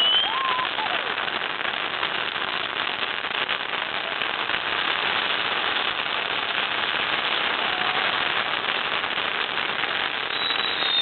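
Several ground fireworks, including tank-shaped novelty pieces, crackling densely and without a break. A falling whistle sounds at the very start and another near the end, with a short rising-and-falling whistle about half a second in.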